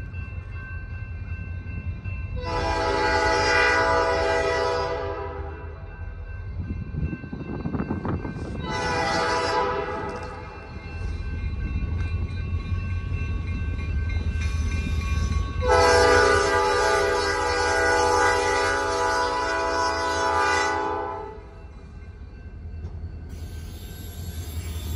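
Diesel locomotive horn of a Great Lakes Central Railroad freight sounding three blasts for a grade crossing: one of about three seconds, a short one, then a long one of over five seconds. A steady low diesel rumble runs underneath, joined near the end by a hiss as the locomotives reach the crossing.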